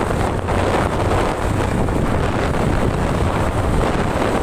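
Wind buffeting the phone's microphone as a Hero motor scooter is ridden along at speed, with the scooter's engine running underneath the rush of air.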